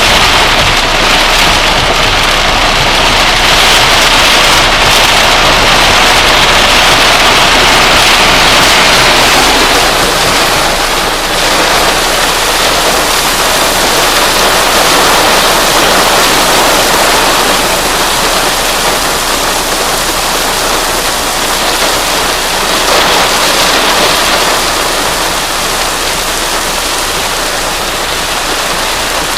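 Heavy rain pouring down in a steady, dense downpour during a storm, easing slightly after about ten seconds.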